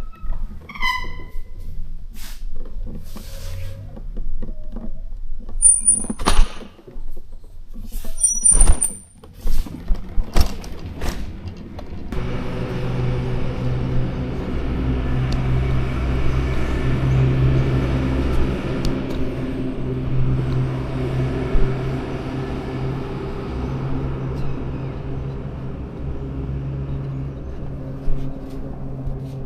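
Scattered knocks and clicks of handling, with a couple of brief high chirps; about twelve seconds in, a motor vehicle engine comes in and runs steadily with a low hum to the end.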